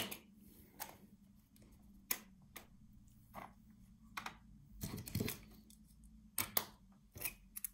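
Light clicks and taps of Märklin H0 model freight wagons being set down and shuffled into a row on a wooden desk: about a dozen irregular clicks, bunched together around the middle and again near the end.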